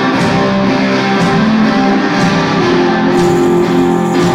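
Live rock band playing an instrumental stretch led by electric guitar, with no vocals, loud and continuous.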